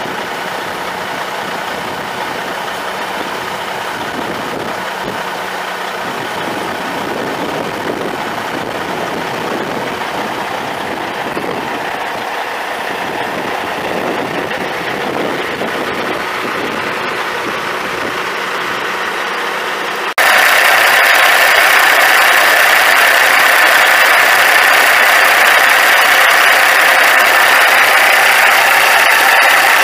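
Cummins ISX 14.9L straight-six turbo diesel of a semi truck idling steadily. About two-thirds of the way through, the sound jumps abruptly louder and brighter and then holds steady, as if heard from much closer to the engine.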